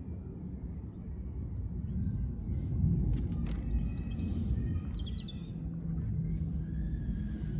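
Birds chirping over a steady low rumble, with a few sharp clicks in the middle.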